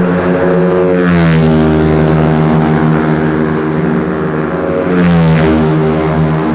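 Cub Prix racing motorcycles passing at speed: a loud, continuous engine note whose pitch drops as one bike goes by about a second in and another about five seconds in.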